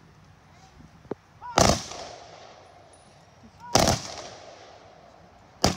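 Rifle volleys of a military funeral gun salute: three sharp volleys about two seconds apart, each trailing off in an echo.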